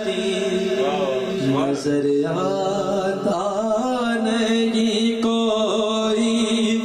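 A man's voice singing an Urdu naat, a devotional song in praise of Medina, drawing out long held notes that waver and bend in pitch.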